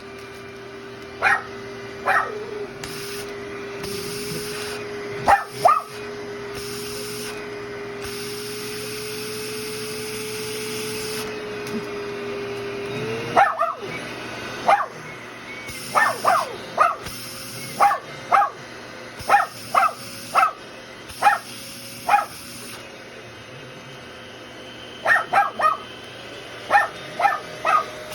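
A dog barking in short, sharp bursts, many times and often in quick runs, over the steady hum of an Oneisall LM2 pet grooming vacuum running. The hum's pitch steps up about halfway through.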